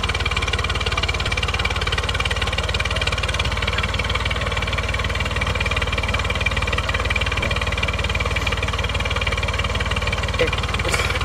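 Massey Ferguson 240 tractor's three-cylinder diesel engine running steadily as it turns a fully loaded sugarcane trolley.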